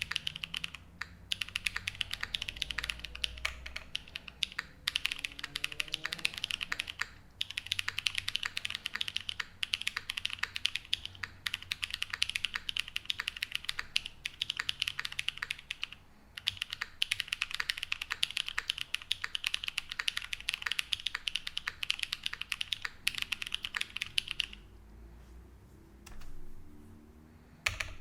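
Fast typing on a custom keyboard with stock Laguna Blue linear switches on a full polycarbonate plate, TX stabilizers and GMK keycaps: a dense run of key clacks with a few brief pauses. The typing stops a few seconds before the end.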